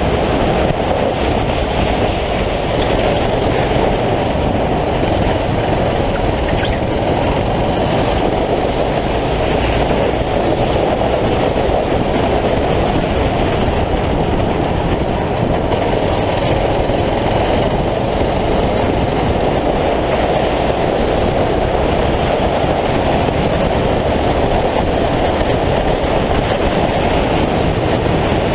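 9 hp racing kart engine running at race pace, heard onboard as a steady, loud rumble mixed with wind rush, with no clear rise or fall in revs.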